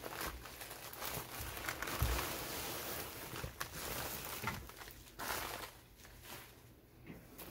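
Plastic mailer crinkling and rustling as a fabric-wrapped bundle is slid out of it, with scattered handling clicks. It quietens for the last couple of seconds.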